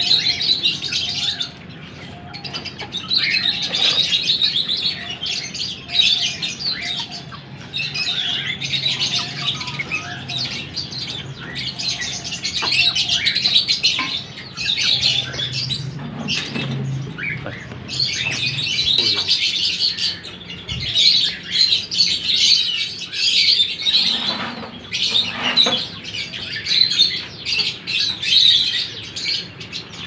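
A flock of small aviary birds chirping and chattering without pause, many calls overlapping.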